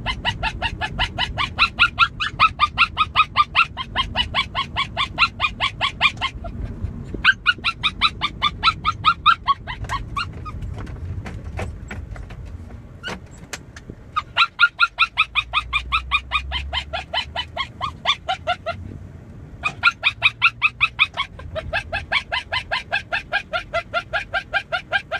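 A small dog shut in a plastic pet carrier yipping and whining over and over, about five high-pitched yips a second in long runs broken by short pauses, over a low rumble.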